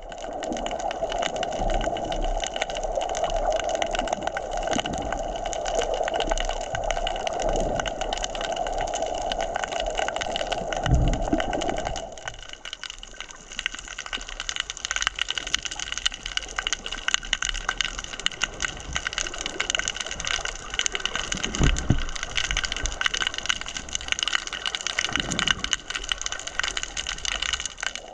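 Underwater sound heard through a submerged camera: a dense crackling with a steady muffled rushing beneath it that cuts out about twelve seconds in, leaving the crackle and a few dull low thumps.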